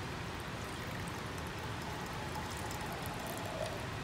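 Dilute salt-water solution being poured from a glass beaker into a larger glass beaker, a steady trickling stream as it fills toward the 150 ml mark.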